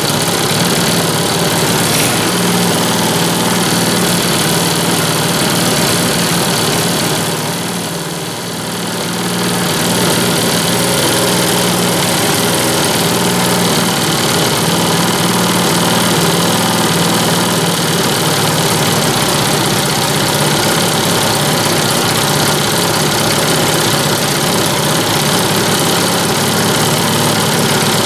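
Small 100cc quad ATV engine idling steadily while its carburetor and throttle cable are adjusted; the engine note sags briefly about eight seconds in and then picks back up.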